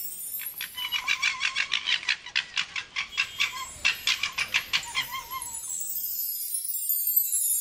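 An animal's rapid chattering call, a quick run of short pulses about five a second lasting some five seconds, over light chiming music.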